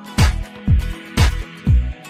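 Upbeat funk/disco-style background music with a steady kick drum about twice a second and a clap or snare on every other beat.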